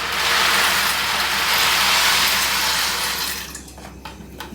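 Dry macaroni pouring from its box into a pan of boiling water, a steady rushing hiss that stops about three and a half seconds in. A few light clicks follow near the end.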